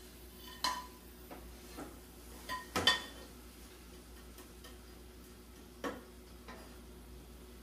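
Spatula knocking and scraping against a frying pan as food is scraped out of it: a few short sharp clinks, the loudest a quick double knock about three seconds in, with another near six seconds.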